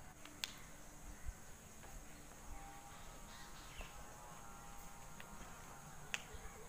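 Faint outdoor ambience: a steady high insect drone and faint distant bird calls, with two sharp clicks, one about half a second in and one near the end.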